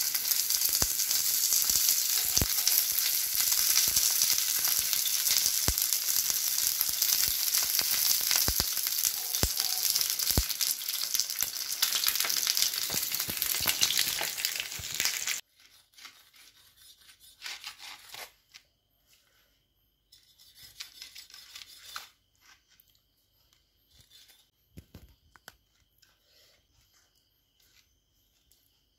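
Fish wrapped in banana leaves (fish pollichathu) sizzling in oil on a hot flat pan: a steady hiss with small pops and crackles that cuts off suddenly about halfway through. After that come faint, short rustles and crinkles of the cooked banana-leaf wrapping being opened by hand.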